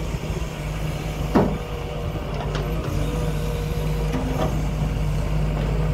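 Doosan DX140W wheeled excavator's diesel engine running steadily, with a steady whine from about two and a half seconds in. Its bucket knocks on loose rock three times, the loudest about a second and a half in.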